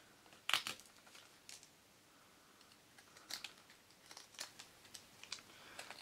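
Folding box cutter's utility blade whittling a small stick of wood: short scraping cuts at irregular intervals, the strongest about half a second in and several fainter ones in the second half.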